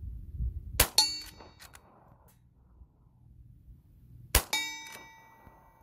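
Two shots from a Rossi R92 lever-action rifle in .44 Magnum loaded with .44 Special rounds, about three and a half seconds apart. Each is followed a split second later by a ringing metallic clang that dies away slowly, and faint clicks of the lever being worked come between the shots.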